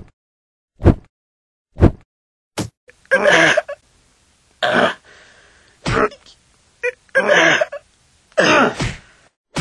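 Fighting grunts and shouts in a mock kung fu scuffle: four short, sharp grunts about a second apart, then five longer, breathy shouts at a steady pace.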